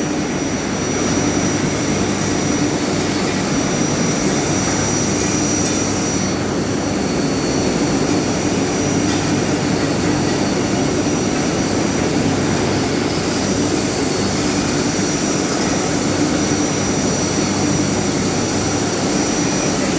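Oxygen lance blowing oxygen into molten copper in a reverberatory furnace: a loud, steady roar with a thin high whistle over it. This is the oxygen-blowing stage of the smelt, which removes impurities and blows off slag.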